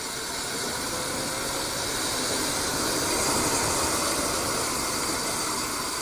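Steady rushing noise of wind and road on a moving action camera while riding along a road, with no clear engine note.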